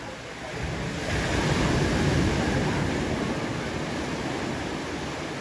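Waves breaking on a shore: a rush of surf that swells about a second in and slowly dies away.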